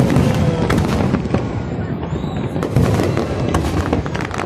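Aerial firework shells bursting in quick succession: many sharp bangs over a continuous low rumble.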